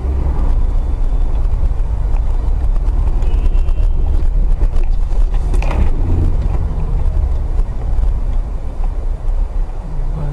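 Car driving, heard through a dashcam: a loud, steady low rumble of engine and road noise, with one brief sharper sound about halfway through.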